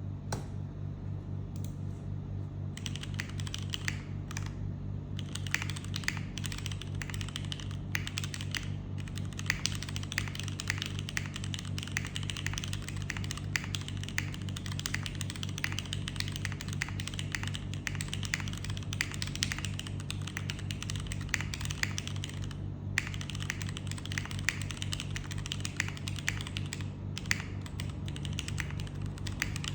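Typing on a Rule60 v3 mechanical keyboard with Cherry HB switches, an aluminium plate, a soldered PCB and DCS keycaps: a few single keystrokes, then fast continuous typing from about three seconds in, with a short pause about three-quarters of the way through. A steady low hum runs underneath.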